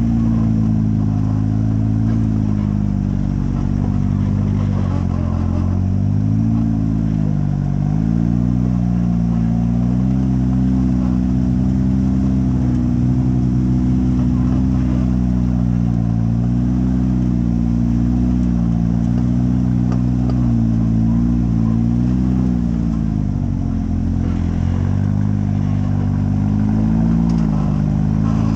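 Off-road buggy's engine running at low speed while crawling over rock, the revs rising and falling several times.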